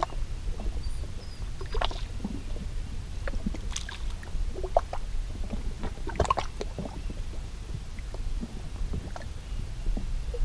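Small waves lapping and sloshing against the rocks of a lakeshore in scattered, irregular splashes over a low steady rumble.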